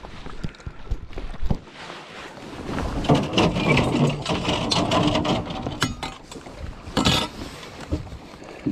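Handling noise as a large smallmouth bass is laid on a measuring board on a boat's carpeted deck and picked up: rustling and knocking, busiest in the middle, with a sharp rattle about seven seconds in.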